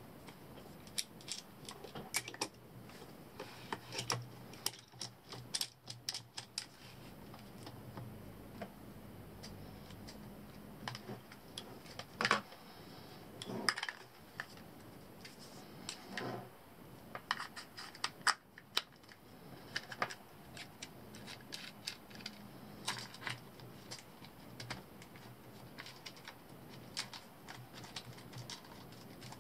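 Irregular clicks, taps and small knocks of metal mounting hardware, an IR torch and its mount, being handled and fitted onto an air rifle's scope, with a few louder knocks near the middle.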